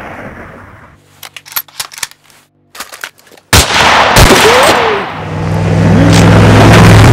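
Dubbed sound-effect gunfire: a few faint clicks, then a sudden loud rifle shot about halfway in, followed by loud continuous gunfire.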